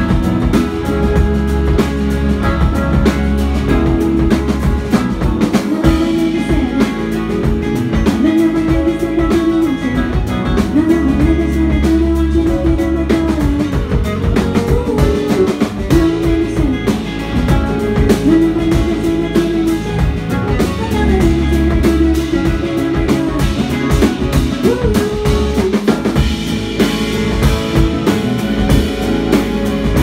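Live indie-pop band playing loudly: electric guitar, bass guitar and drum kit, with a melodic line wavering over a steady low bass.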